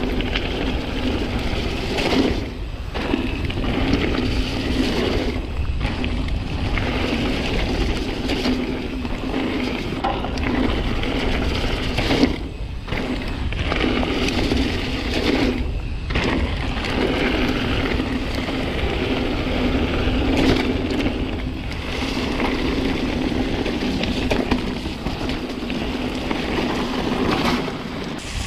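Mountain bike descending a loose gravel forest trail: tyres rolling over grit and stones, the bike rattling, and wind buffeting the handlebar-mounted camera, with a steady low hum that drops out briefly a few times.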